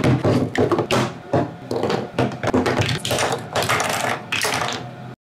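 White PETG 3D-printed plastic parts clattering and knocking on a wooden desk as they are handled, with many irregular clicks and taps.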